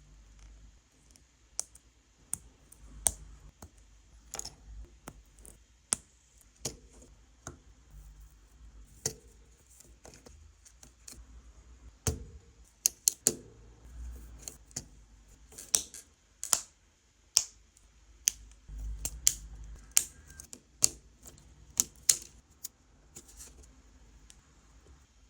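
Plastic building bricks being handled and snapped together: many sharp, irregular clicks and small knocks, some in quick clusters, with soft rubbing of pieces between them.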